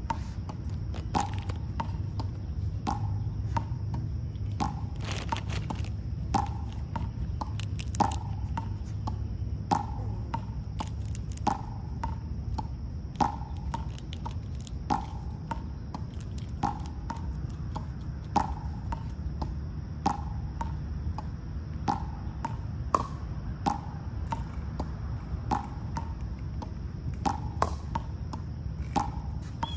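Chipmunk giving its low, knocking "chuck" call over and over, about once a second, in a steady rhythm.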